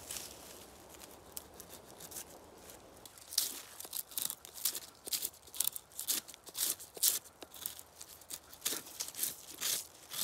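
A fixed-blade knife shaves bark and wood from a birch log in repeated short scraping strokes, each peeling off a curl. The strokes start about three seconds in and come roughly two a second, after soft rustling.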